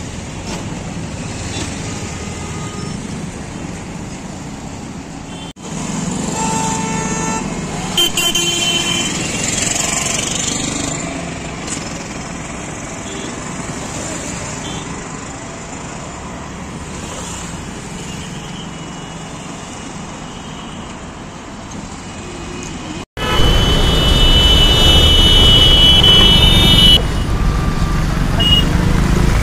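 Road traffic in a jam: vehicle engines running with steady traffic noise and vehicle horns honking. Several horns sound about six to ten seconds in, and one long, loud horn is held for about three seconds near the end.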